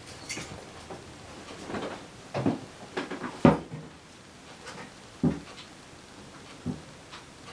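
A handful of separate knocks and clunks, as of things being handled and set down, the loudest about three and a half seconds in.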